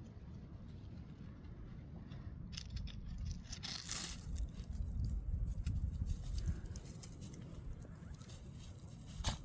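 Gusting wind rumbling on the microphone, with rustling and crackling from wind-blown trees; the gust builds to its loudest about halfway through, and a sharp click comes near the end.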